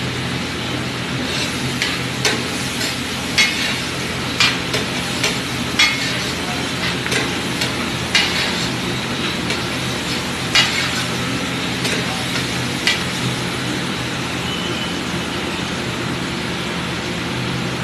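Metal pav bhaji masher knocking against a large flat griddle as the bhaji is mashed, in irregular sharp clanks that stop about two-thirds of the way through, over a steady sizzle and low hum.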